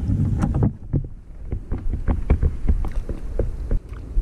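Wind buffeting the microphone with a low rumble, easing for a moment about a second in. Irregular short slaps and knocks run through it, water lapping against the plastic kayak hull.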